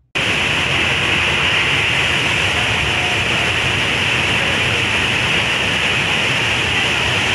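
Mountain river in spate, its muddy floodwater rushing past in a steady, loud roar of water.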